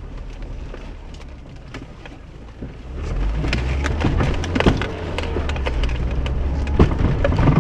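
Car heard from inside the cabin, its engine droning low while it jolts over a rough, grassy forest dirt track. Sharp crackling and knocking grows louder and denser from about three seconds in.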